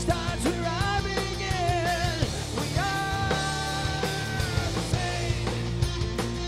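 Live groove metal band playing: drum kit, distorted guitars and bass, with a high melodic line that bends through a phrase and then holds one long note.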